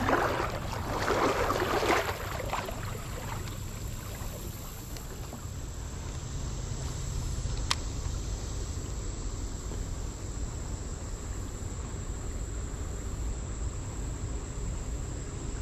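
Water splashing around a wader in a creek for the first couple of seconds, then a steady low outdoor rumble under a constant high insect drone, with one sharp click about midway.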